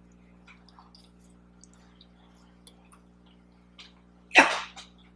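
Faint clicks and chewing sounds of someone eating a cookie, then a short, loud, breathy vocal burst from a person about four seconds in.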